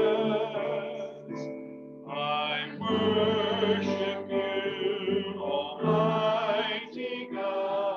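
Live worship song: voices singing long held notes over electric bass guitar and keyboard.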